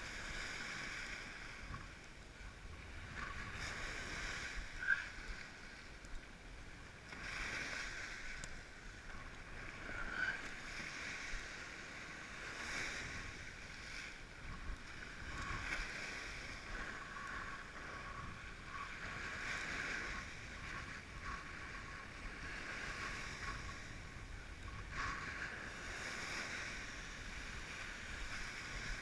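Water rushing and splashing against a Fanatic FreeWave 76 windsurf board as it sails through whitewater and chop, mixed with wind. The rush swells and eases every few seconds, with a sharp slap about five seconds in.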